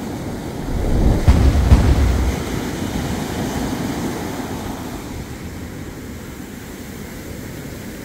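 Small ocean waves breaking and washing up a sandy beach as foamy surf, a steady hiss of water. About a second in, a loud low rumble of wind buffeting the microphone lasts about a second, and then the surf eases down.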